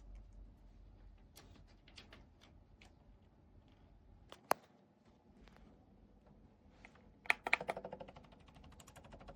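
Light plastic clicks and taps from handling a handheld steam iron, with one sharp click about halfway through. Near the end a rapid, evenly pulsing buzz starts up.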